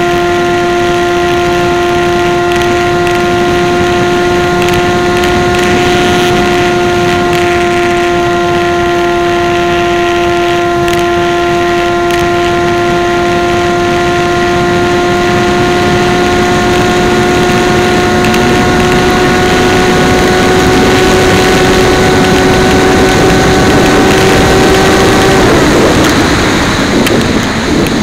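Model aircraft's motor and propeller running steadily, a loud buzzing tone whose pitch creeps up slightly. It cuts off about 25 seconds in, leaving only the rush of wind over the airframe.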